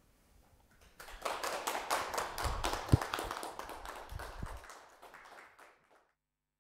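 Small audience applauding, the clapping starting about a second in and fading away, with a dull thump around the middle.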